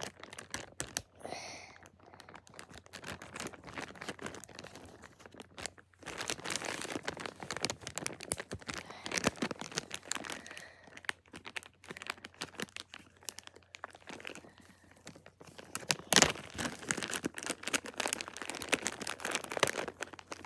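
Handling noise close to the microphone: irregular rustling and crinkling with many small clicks as toys are handled. It eases off for a few seconds after the start and again midway, with louder bursts in between and about three-quarters of the way through.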